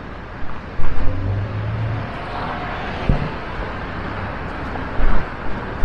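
City street traffic: car engines and tyres running by in a steady wash of noise, with loud low thumps about a second in and again near the end.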